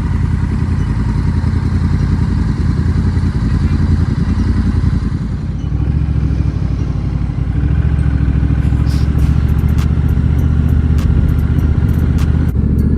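Honda Rebel 1100 motorcycle's parallel-twin engine running steadily under way, with a brief dip in level about five seconds in.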